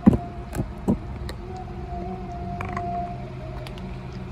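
A cat with stomatitis eating wet canned tuna off a plastic lid: a few chewing and licking smacks in the first second. Under them runs a steady, slightly wavering tone.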